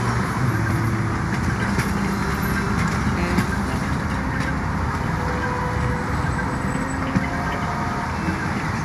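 A recorded city traffic soundscape forms a steady rushing bed throughout. Long held notes from a baritone saxophone and other instruments of a free-improvisation ensemble come and go over it, some low and some higher.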